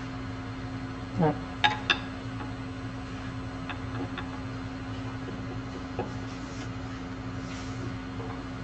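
Wood lathe running steadily with a bowl blank spinning on it, a constant motor hum with a few light clicks of tools against the tool rest. The blank is slightly out of round, having dried since it was turned that morning, and is about to be trued up.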